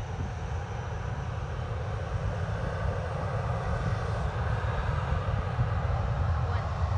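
Jet engines of a Boeing 737-800 (CFM56 turbofans) running up for the takeoff roll, heard from beside the runway as a steady engine noise with a low rumble that grows slightly louder.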